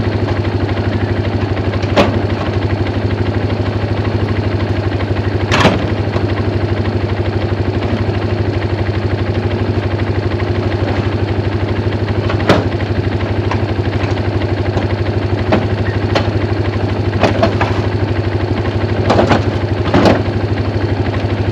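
A snow-plowing vehicle's engine running steadily at a low idle, with several sharp clanks and knocks over it.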